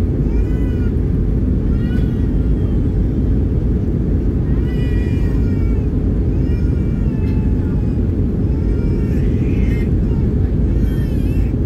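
Steady cabin roar inside an Airbus A319 in flight. Over it, six or seven short, high, wavering cries rise and fall every second or two.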